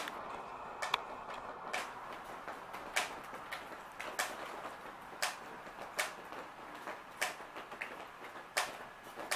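Rain dripping: single drops ticking sharply at irregular intervals, roughly one or two a second, over a steady soft hiss of light rain.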